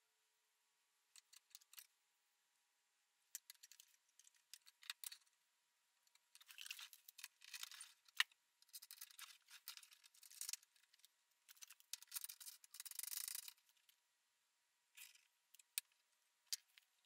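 Faint, irregular scratchy strokes of brass bars being rubbed by hand on a sheet of sandpaper, with a few small clicks of the metal pieces. The strokes come in short clusters with pauses between them.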